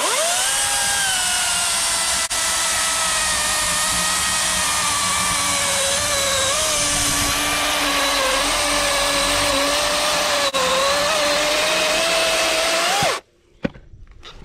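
DeWalt 60V FlexVolt 16-inch battery chainsaw spinning up and cutting through a log about 12 inches across, a steady electric motor whine that drops slightly in pitch under load. It stops abruptly when the cut is done, about thirteen seconds in.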